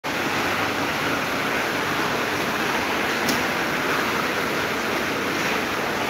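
Electric fans running: a steady rush of air from the spinning blades, with one faint tick about three seconds in.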